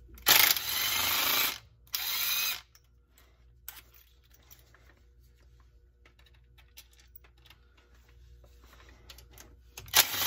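Cordless Ryobi power driver spinning out transmission filter bolts: a run of about a second, a shorter one just after, and another starting right at the end, with faint small clicks and handling sounds between.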